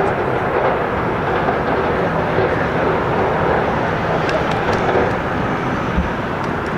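Boeing 737-700 jet engines running, a steady, loud rushing noise with no breaks.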